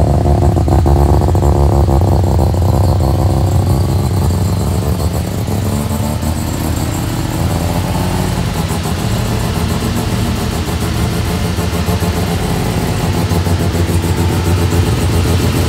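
Engine of a Mazda Savanna (RX-3) sedan running. Its revs fall away over the first few seconds and then settle into a steady, lumpy idle.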